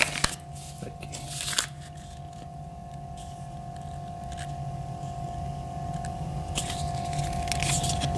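Paper and card stock being handled: crisp rustles and crinkles as a folded instruction booklet and guarantee cards are turned over, in a cluster at the start and again near the end.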